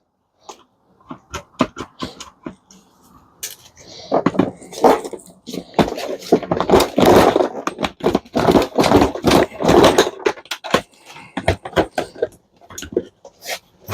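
Clattering knocks and scraping of dishwasher parts being handled and pulled apart, sparse at first and busy from about four seconds in.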